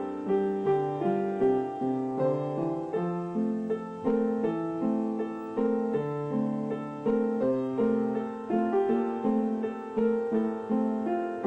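Solo piano music with evenly paced notes, about two a second.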